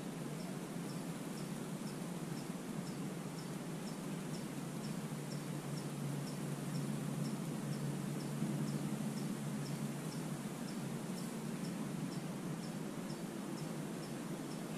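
An insect chirping steadily, a short high chirp repeated about three times a second, over a low steady rumble.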